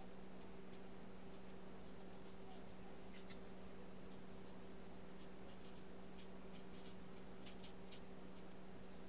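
Paintbrush dabbing and stroking gouache onto paper: faint, short scratchy touches, coming in quick clusters, over a steady low electrical hum.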